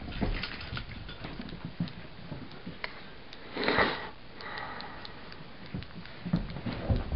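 Two mini Australian Shepherds playing: scattered claw taps and scuffles on the floor, with sniffing and one loud breathy sniff a little past halfway.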